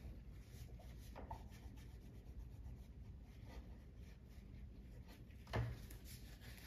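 Faint rubbing and scratching of a cotton ball being scrubbed over the metal nail heads of a painted wooden table, working chalk paint off them with baking soda and hot water. One soft knock about five and a half seconds in.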